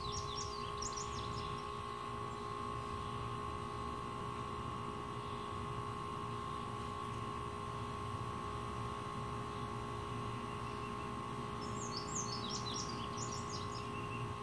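A songbird twittering in two quick runs of high chirps, one near the start and one near the end, over a steady hum with a fixed high-pitched tone.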